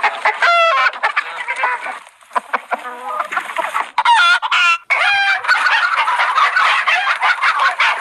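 A quick run of short cartoon sound effects cut one after another, mostly animal-like pitched calls with sharp rises and falls in pitch.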